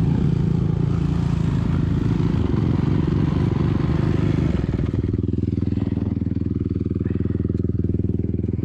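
Dirt bike engine running at a steady speed, dropping to a lower steady pitch about five seconds in.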